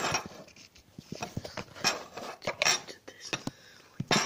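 Kitchen knife cutting sujuk sausage on a cutting board: irregular knocks and clatter of the blade on the board.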